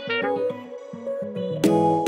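Background music: a quiet passage of single plucked notes, with a fuller chord coming in about a second and a half in.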